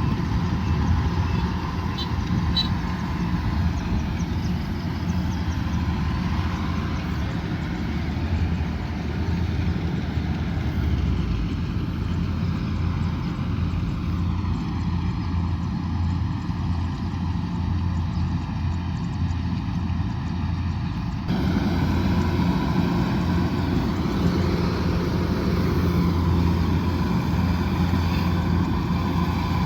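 Kubota DC108X combine harvester running steadily under load: a continuous engine hum with the drone of its working machinery. About two-thirds of the way through, the sound changes abruptly and becomes slightly louder.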